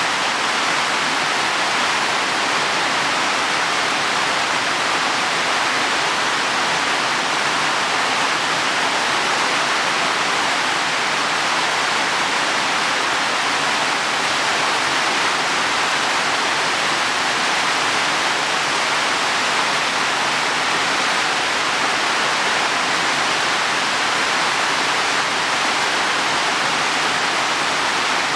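Heavy rain falling on leaves and soil: a dense, steady hiss with no single drops standing out.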